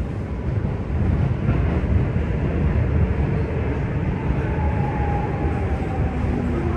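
Madrid Metro series 7000 train running through a tunnel, heard from inside the car: a steady low rumble of wheels and motors, with a faint whine that falls slightly in pitch past the middle.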